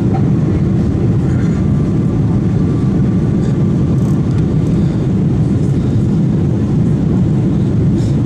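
Jet engines of a British Airways Boeing airliner heard inside the cabin during the climb after takeoff: a loud, steady, deep drone.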